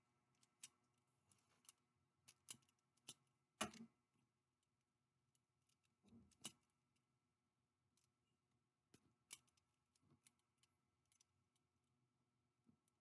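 Faint, irregular clicks and small knocks of a small object being handled and worked by hand, the sharpest about three and a half seconds in, with near silence between them.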